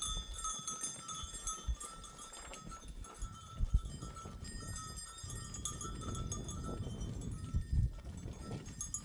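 Bells on a grazing flock of goats and sheep ringing steadily, with a few dull knocks.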